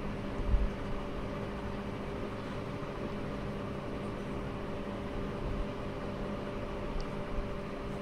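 Steady background hum, like a fan or appliance, with a soft knock about half a second in and a faint click near the end as a hard plastic phone case is handled and pressed into place.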